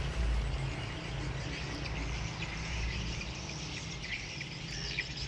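Insects chirping steadily in dense weeds, with short bird chirps standing out near the end. A low rumble underneath fades away about two seconds in.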